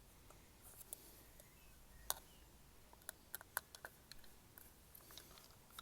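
Faint scattered clicks and taps of small plastic and metal parts being handled while fitting a turn-signal lamp into its housing, with a small cluster of quick clicks a little past halfway.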